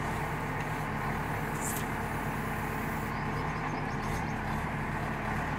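JCB 3DX backhoe loader's diesel engine running steadily at an even speed, with no revving or breaks.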